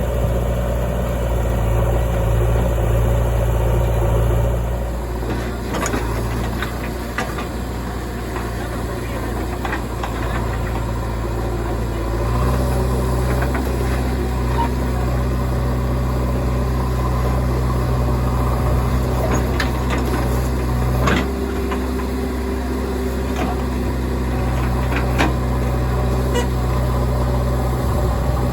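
Diesel engines of a backhoe loader and a truck running steadily, the engine note shifting a couple of times, with a few short sharp knocks and clanks from the digging and loading.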